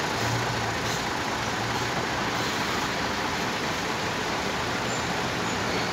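Heavy container truck's diesel engine idling, a steady low drone under an even wash of yard and traffic noise.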